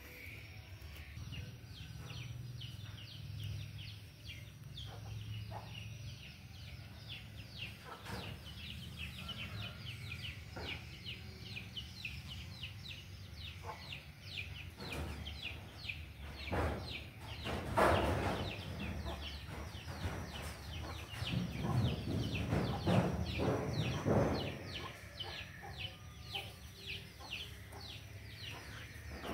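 High-pitched bird chirping: short falling peeps repeated several times a second without a break. Louder rustling and knocking comes in partway through.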